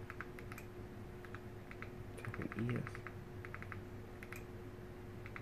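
A series of faint, irregular clicks from button presses on the remote as the Fire TV's on-screen keyboard is stepped through letter by letter.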